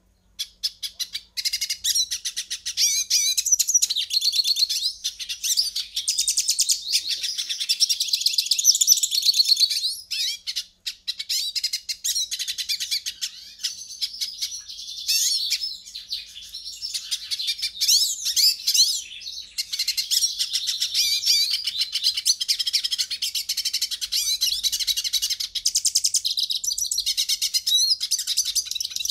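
European goldfinch singing: a fast, nearly continuous run of twittering trills and chirps, broken by a short pause about ten seconds in.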